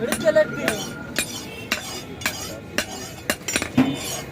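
Blacksmiths' hammers striking iron on an anvil, sharp metallic clanks at about two a second with a short ring after each.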